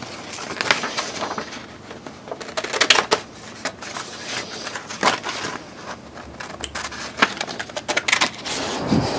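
Paper template being handled and cut with scissors: irregular crisp snips and rustles.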